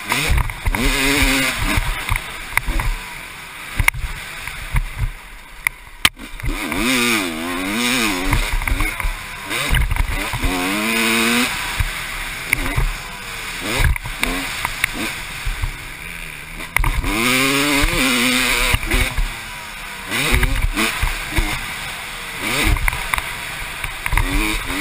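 1996 Honda CR250's single-cylinder two-stroke engine revving hard and dropping back again and again as the dirt bike is ridden round a motocross track, the pitch climbing and falling with each burst of throttle. Wind rushes over the on-bike microphone, with a few sharp knocks from the bike over bumps.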